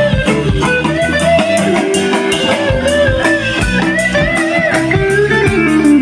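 Live rock band playing an instrumental break: a lead guitar line with bent, gliding notes over bass guitar, drums and a strummed acoustic guitar.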